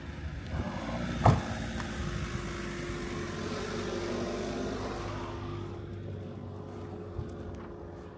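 A motor vehicle running, its hum growing louder to a peak around four seconds in and then fading away. A single sharp knock about a second in is the loudest sound.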